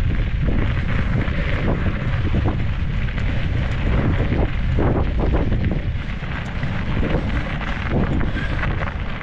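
Wind buffeting the microphone of a mountain-bike action camera, a steady loud low rumble that eases slightly near the end.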